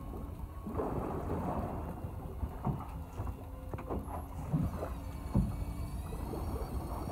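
Wind rumbling on the microphone aboard a small fishing boat, with water sounds and scattered short knocks.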